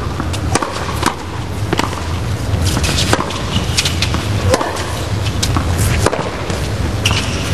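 Tennis balls being struck and bounced in play: a series of sharp pops, roughly one every half-second to second, over a steady low background hum of the arena broadcast.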